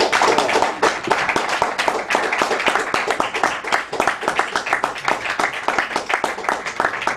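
Audience applauding: many hands clapping densely and steadily at the close of the performance.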